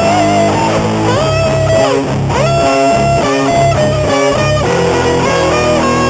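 Electric guitar music: a lead line sliding up and down between notes over bass and chords, settling into a long held note near the end.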